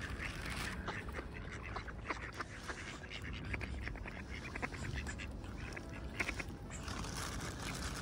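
Mallard ducks quacking quietly in short runs of calls.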